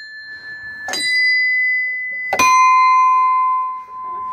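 Small metal bells hung in a row from a wooden beam, rung by pulling the ropes tied to their clappers. A bell struck just before still rings, a higher bell is struck about a second in, and a lower bell is struck about two and a half seconds in and rings on steadily.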